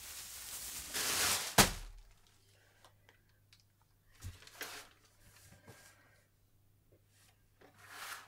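A rising rush of rustling noise that ends in a single sharp knock about one and a half seconds in. Then soft handling sounds at a wooden cupboard: a low thump, small wooden knocks and papers rustling near the end.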